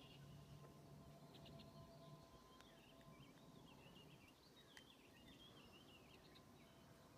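Near silence: faint outdoor ambience with distant birds chirping and warbling.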